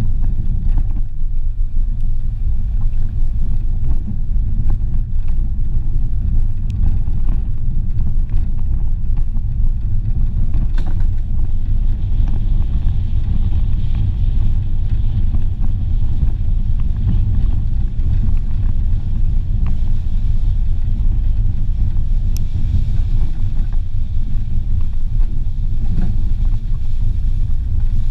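Renault Clio driving along a rutted dirt forest track: a steady low rumble of the car moving over rough ground, with a few small knocks here and there.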